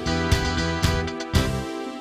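Background music with a steady beat; the low notes drop out near the end.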